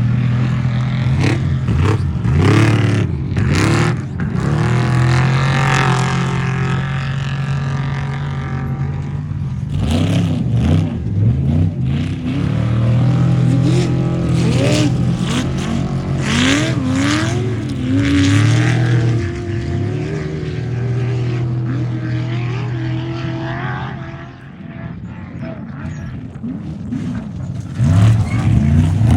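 Off-road racing vehicle engines running loudly, with repeated rising revs. The sound drops quieter about 24 seconds in and comes back up near the end.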